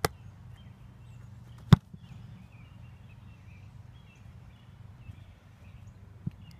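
An American football punt: a sharp smack right at the start, then the loud thud of the punter's foot striking the ball under two seconds in. A faint thump near the end is the ball landing about four and a half seconds later, over a steady low outdoor rumble.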